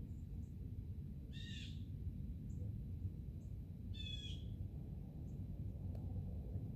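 A bird calling twice: two short calls about two and a half seconds apart.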